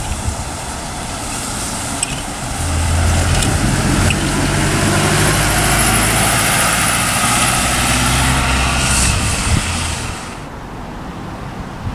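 Double-decker bus passing close by on the guided busway: engine hum and tyre noise build about two and a half seconds in and stay loud through the pass. The sound drops suddenly to quieter road noise about ten seconds in.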